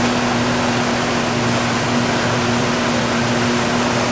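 Motorboat engine running at a steady speed while under way, a constant hum, with an even rush of wind and water passing the boat.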